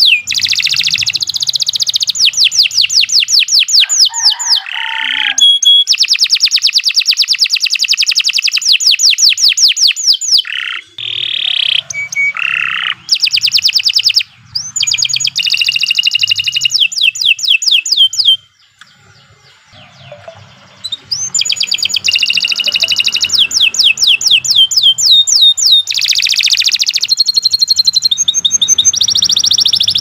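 Domestic canary singing a long, loud song of rapid trills, rolls of quickly repeated high notes that change from phrase to phrase, with a pause of about two seconds a little past the middle.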